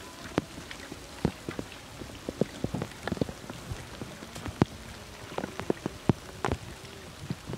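Scattered raindrops tapping on leaves and wet ground: irregular sharp taps, a few at a time in loose clusters, over a faint steady background.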